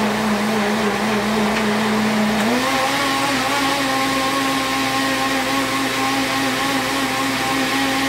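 Countertop blender motor running steadily while blending frozen chopped kale, ginger and water into juice; its pitch steps up about two and a half seconds in and then holds steady.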